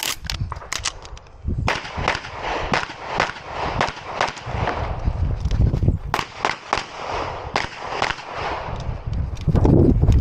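Compensated Open-division race pistol fired in rapid strings of shots, several a second, as the shooter works through a practical pistol stage. Movement and handling noise fills the gaps between strings, heavier near the end while he runs.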